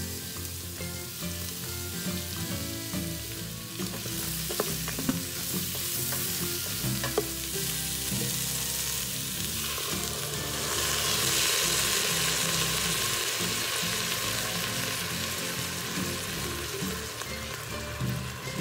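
Chopped onion and celery sizzling in an Instant Pot's stainless steel inner pot, with a few clicks of a wooden spatula stirring early on. About ten seconds in, chicken broth is poured onto the hot pot and the sizzle gets louder and brighter.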